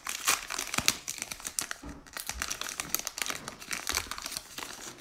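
Trading card pack wrapper crinkling in a rapid, irregular run of crackles as it is pulled open and peeled off the cards.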